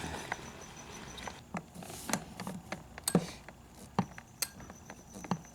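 Scattered short metallic clicks and clinks of a wrench working a seat bolt in a cramped space, the ratchet moving only a click at a time because there is so little room to swing it.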